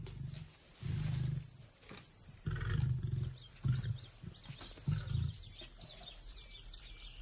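A series of short, deep grunting calls from an animal, about five or six of them, spaced irregularly over the first five seconds, with faint high chirping of birds or insects behind them.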